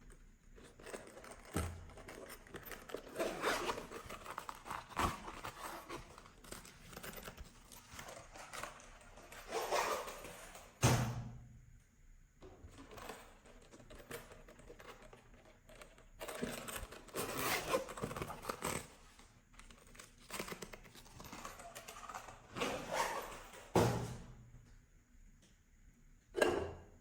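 Slime being mixed, irregular wet handling noises that come and go, with a few dull thumps, the loudest about eleven seconds in.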